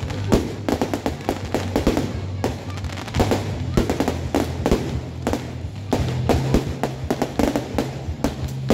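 Aerial fireworks going off in quick succession: a dense run of bangs and crackles from bursting shells.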